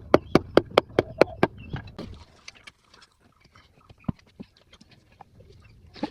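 Rapid, evenly spaced knocks, about five a second, stopping about a second and a half in, followed by scattered light clicks and taps.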